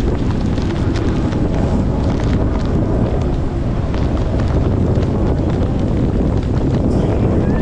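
Heavy rain with wind rushing over the microphone: a steady low rumble of wind noise with many small ticks of raindrops striking.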